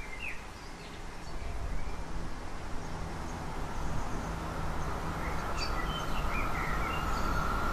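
Small birds chirping over a steady low rumble, while an approaching electric passenger train grows slowly louder; a steady high-pitched hum from the train comes in near the end.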